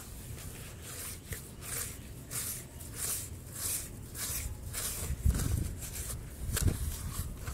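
A hand pressing, squeezing and digging into damp brown sand in a plastic tub: a gritty rubbing scrape about twice a second, joined from about five seconds in by louder, duller pressing sounds as the fingers dig in.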